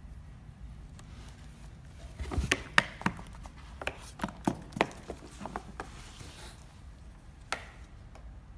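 Irregular run of sharp taps and knocks on cardboard, about a dozen between two and six seconds in, then one more near the end: a cat's paws and claws hitting and scratching a cardboard cat house.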